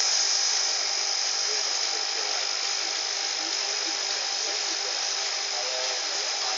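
Steady hiss of water running over an aquarium waterfall feature, with a faint high whine held throughout.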